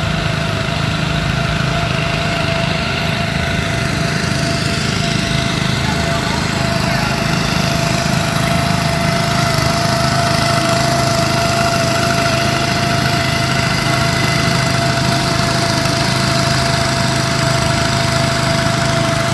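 Warthog floating pump's engine running steadily at constant speed while pumping out floodwater, with a steady whine and a hiss that grows a little stronger after about four seconds.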